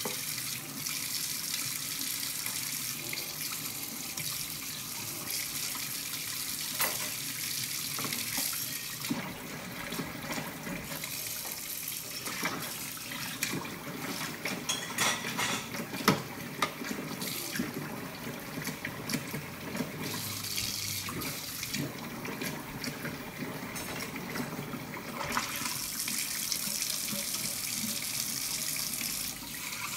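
Kitchen tap running steadily into a stainless-steel sink as dishes are scrubbed and rinsed under the stream. Scattered knocks of dishes being handled come through the middle, the loudest about halfway.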